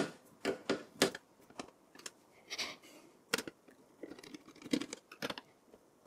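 Screwdriver undoing the CPU heatsink screws in a small desktop PC: an irregular run of light clicks and short scrapes as the tip works the screws.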